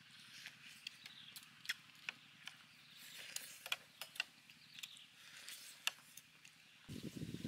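Several people chewing and smacking their lips as they eat beef ribs and corn on the cob by hand: faint, wet, irregular clicks several times a second, with a louder, duller noise near the end.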